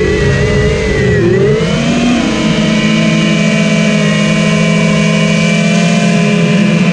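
FPV quadcopter's brushless motors and propellers whining, the pitch dipping and rising with throttle in the first two seconds, then holding steady.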